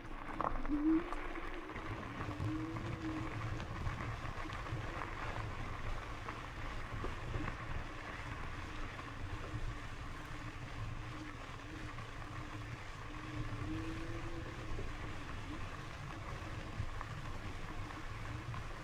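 Lectric XPEAK 2 e-bike riding along a gravel trail: steady tyre and wind rumble, with a faint hum that wavers up and down in pitch as the speed changes.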